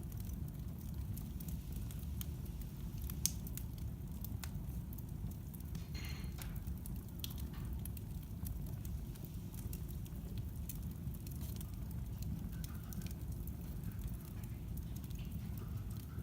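Wood fire burning in a fireplace: a steady low rumble of flames with scattered sharp crackles and pops, the loudest about three seconds in, and a short hiss about six seconds in.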